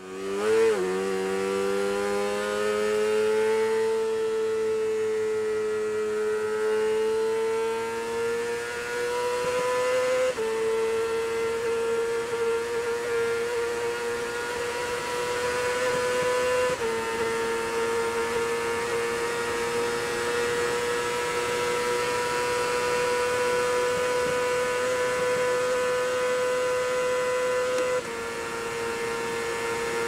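Racing sidecar outfit's engine running at high revs flat out. Its note climbs over the first second, then holds nearly steady with small steps in pitch about ten, seventeen and twenty-eight seconds in. A rush of wind noise runs underneath.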